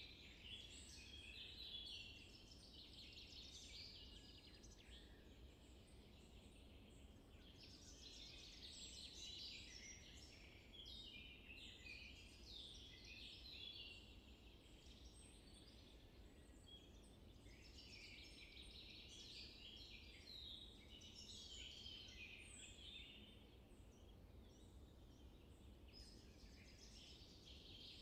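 Faint chorus of small birds chirping, coming and going in waves, over a low steady rumble.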